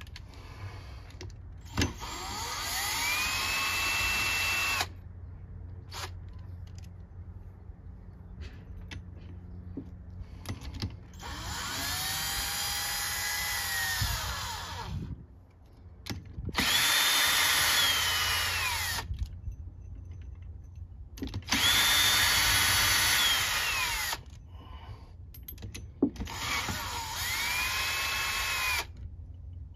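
Power drill run in five separate bursts of a few seconds each, its motor whine rising as it spins up, holding, then falling away as the trigger is released, with small clicks of handling between runs.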